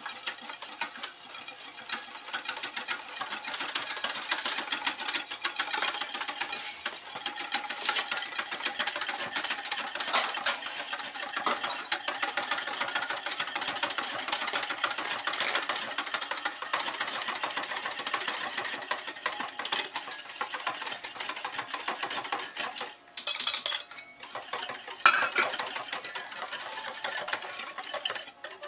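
Wire whisk rattling and clicking rapidly against the sides of a stainless steel saucepan, whisking hot cream without stopping as the egg yolk mixture is poured in, so the eggs do not curdle. Near the end the whisking stops briefly, and then there is one sharp clink.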